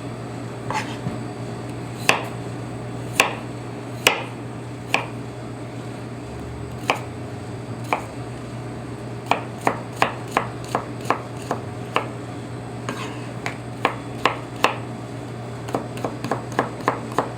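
Chef's knife dicing potatoes on a cutting board: sharp knocks, some single and some in quick runs, with pauses between. A steady low hum runs underneath.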